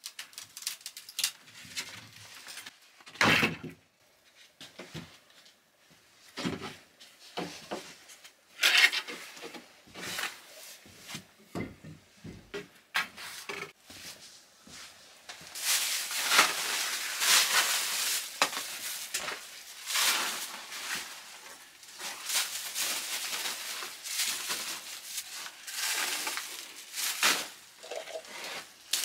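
Clean-up handling noises: scattered knocks and clinks as a long wooden pole is worked over the top of a brick stove, then from about halfway a denser, continuous rustling and crackling as debris and a woven plastic sack are handled.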